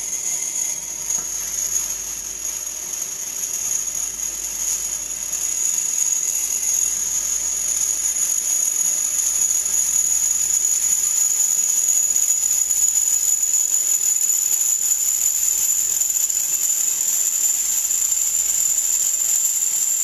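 Homebrew beer running steadily through a siphon tube into a pressure barrel, a continuous rushing hiss with a thin high whine that creeps slowly upward in pitch.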